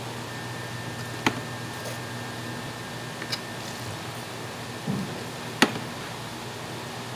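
Steady kitchen room hum with a faint held tone, broken by a few sharp clicks and taps, the loudest about two thirds of the way through, and a short low knock just before it.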